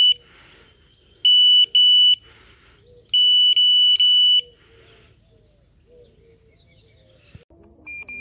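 Electronic carp bite alarm sounding a high, steady beep in bursts: two short bursts, then a longer, faster-pulsing one about three seconds in, signalling a take as a fish pulls line. Near the end a second bite alarm with a slightly lower tone starts up.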